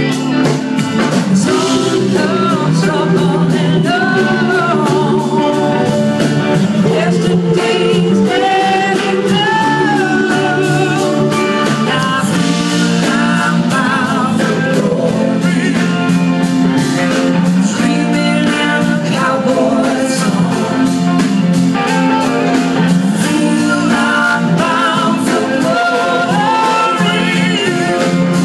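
A live blues-rock band playing, with electric guitars, drums and singing.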